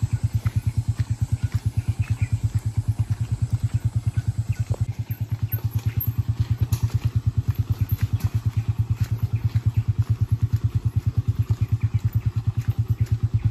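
Motorcycle engine running at low revs over rough trail, with a steady, even pulsing beat of several pulses a second.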